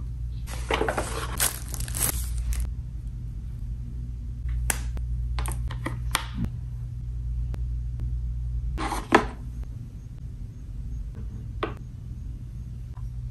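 Handling noises of a wood-grain wireless-charging speaker lamp. First a few seconds of scraping and rustling as it is lifted from its packaging, then a run of sharp clicks as a USB cable is plugged in. About nine seconds in comes a single loud knock, and a small click near the end, over a steady low hum.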